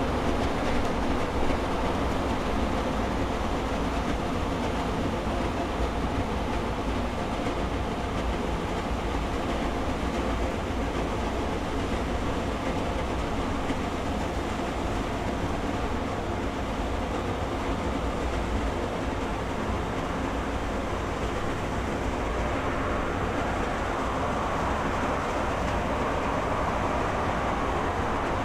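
Jet engines of a Boeing 737-800 airliner running steadily, a continuous mechanical hum with several held tones over a low rumble, growing a little brighter in the upper tones near the end.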